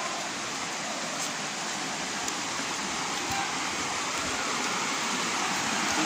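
Stream water rushing steadily over rock slabs and small cascades, growing a little louder toward the end.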